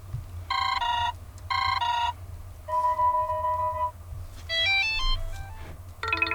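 Electronic ringtone playing from a Blackview BL6000 Pro 5G phone's speaker: a two-note chirp sounded twice, a held tone, then a quick rising run of beeps, with another chirp pattern starting near the end.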